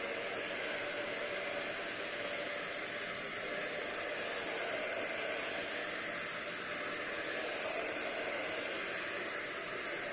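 Euro-Pro 2-in-1 stick vacuum running steadily on a hard floor: a loud rush of airflow with a thin, steady high whine from the motor.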